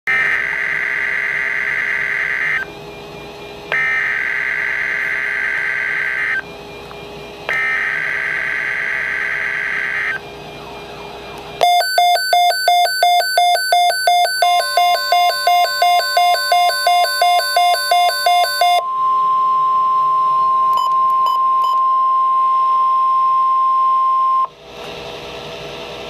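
Midland NOAA weather radio receiving a flood watch alert. It plays three long, screechy SAME digital data bursts with short gaps. Then comes the radio's own alarm beeping about three to four times a second, joined partway through by the steady 1050 Hz weather-alert attention tone, which runs on after the beeping stops.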